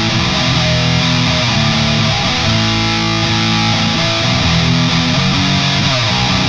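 Seymour Duncan Sentient neck humbucker on a seven-string Jackson JS22-7 electric guitar, played through a crunchy overdriven amp: sustained chords and notes, with a slide down near the end.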